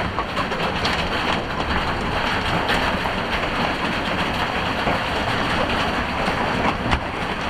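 Large hail coming down hard: a dense, steady clatter of countless small impacts.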